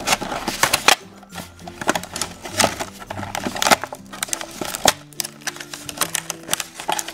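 Clear plastic doll packaging crackling and clicking in quick irregular snaps as hands pull and bend it open, with light background music underneath.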